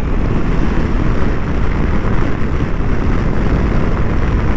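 Steady wind rush over the microphone with road and engine noise beneath, from a KTM 890 Adventure R motorcycle being ridden at speed.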